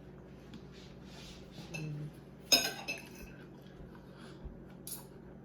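A utensil clinking sharply against a dish or food container about two and a half seconds in, with a brief ring, and a few softer clicks of eating around it.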